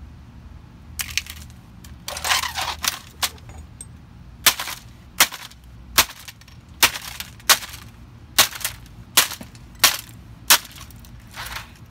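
Claw hammer striking the plastic base of a stripped Toshiba laptop lying on concrete: a few scattered knocks and rattles, then about ten sharp blows at a steady pace of a little over one a second from about four seconds in.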